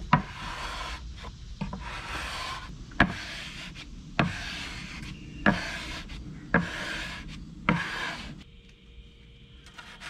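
A wooden board with a rounded edge pushed hard across a sheet of walnut veneer in repeated strokes to press it flat, about seven in all: each begins with a sharp knock and runs on as a rasping rub. The strokes stop over a second before the end, leaving it much fainter.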